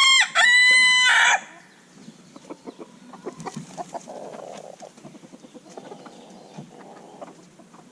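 A rooster crowing: the long held final note of a crow, loud and steady, cutting off about a second and a half in. After it come only soft scattered knocks and rustling.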